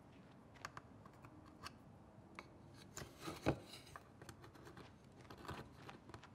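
Scattered light clicks and knocks of a shelf and wooden cabinet parts being handled while the shelf is fitted, with one sharper knock about three and a half seconds in.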